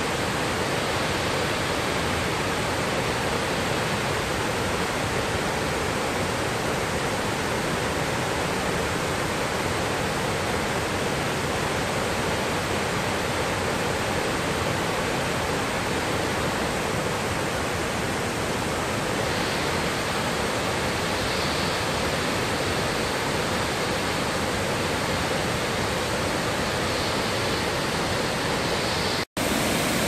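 Steady rush of water from Thi Lo Su, a tall multi-tiered limestone waterfall, an even noise that does not change. It breaks off for an instant near the end.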